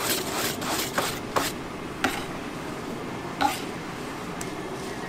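Wire whisk beating thin batter in a large stainless steel bowl, quick strokes about three a second for the first second and a half. Then two single knocks, a little over a second apart, over steady background noise.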